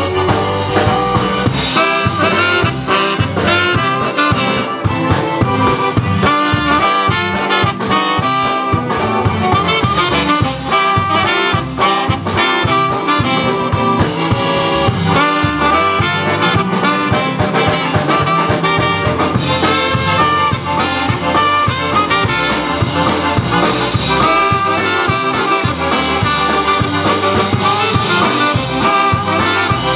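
Live band playing an instrumental break: a trombone and a saxophone carry the melody over electric guitar and a drum kit.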